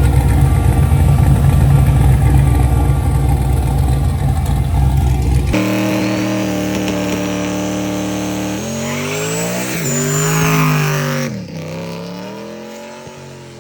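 Drag car's engine under hard acceleration on a test pass: loud engine noise, then, after a sudden change, a steady engine note that climbs and falls in pitch with a thin high whine rising and then dropping, and the sound fades near the end.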